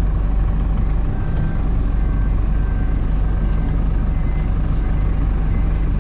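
Hino cab-over box truck's diesel engine running steadily at low speed while the truck is manoeuvred. From about a second and a half in, faint short beeps repeat.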